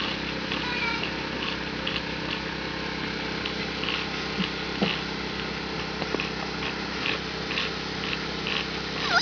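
Puppies making small whines and squeaks, with a short rising whine about five seconds in, over a steady background of regular high chirps about twice a second.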